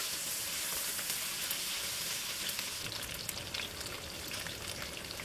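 Chicken pieces frying in oil with sliced shallots, lemongrass and chillies in a wok, giving a steady sizzle as they are stirred with a silicone spatula. Small crackles and clicks join in from about halfway through.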